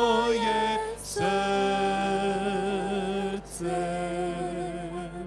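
Slow worship song being sung in long, held notes with a slight waver, with two short breaks between phrases, fading out near the end.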